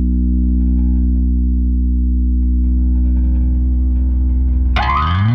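Electric bass played through a Jam Pedals Dyna-ssor bass compressor pedal, holding one low note that sustains at a steady, even level. Near the end a brief, brighter sound with a sliding pitch comes in just before it cuts off.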